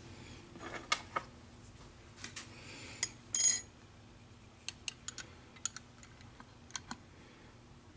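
Scattered light clicks and taps, with a brief, louder scraping rustle about three and a half seconds in, over a faint steady hum.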